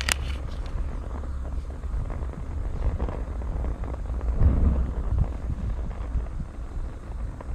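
Wind buffeting the microphone: a steady low rumble that swells about halfway through, with a short sharp click at the very start.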